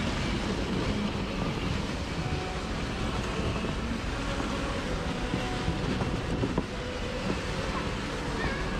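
Ice skates and a skating aid scraping and gliding over rink ice, a steady rough rumble.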